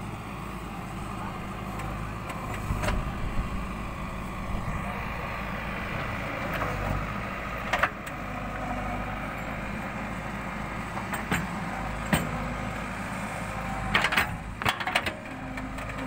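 Backhoe loader's diesel engine running steadily under hydraulic load as the bucket digs into soil, with occasional clanks and knocks from the bucket and boom linkage and a cluster of them near the end.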